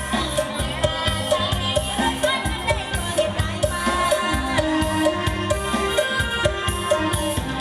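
Live band music: a Thai Isan song played with a steady drum beat and pitched melody lines.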